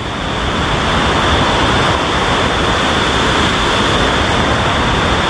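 Rain-swollen, muddy village stream rushing past in spate: a loud, steady rush of water.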